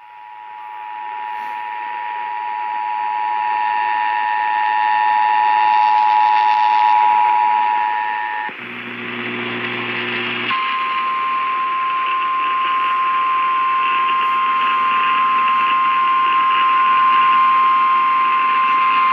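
Emergency alert tones heralding a tornado warning: the two-tone EAS attention signal held for about eight seconds, a brief low buzz, then the single steady NOAA Weather Radio warning alarm tone for about nine seconds. All of it sits over a hissy background that grows louder.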